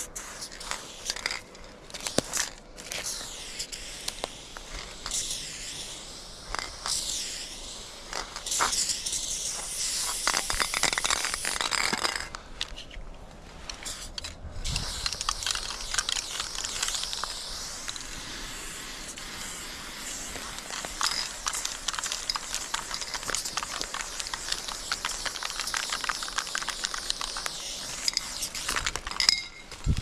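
Aerosol spray-paint can hissing in long bursts as paint is sprayed onto a concrete wall, with a short break a little before the middle.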